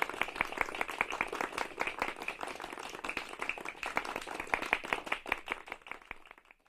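Polite applause from a medium-sized group, many hands clapping at once, thinning out and dying away near the end.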